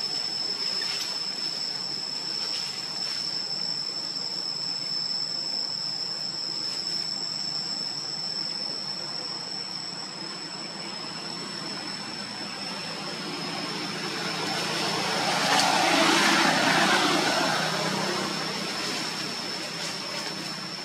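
Outdoor background noise: a steady high-pitched whine throughout, with a broad rushing sound that swells and fades about three-quarters of the way through, like something passing by.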